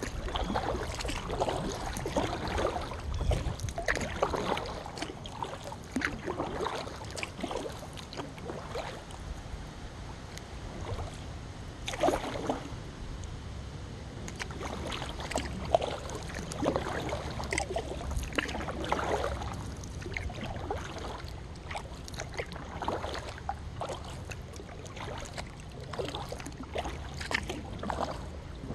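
Kayak paddle blades dipping and splashing in calm river water, soft swishes every second or so at an uneven pace, with a steady low rumble underneath.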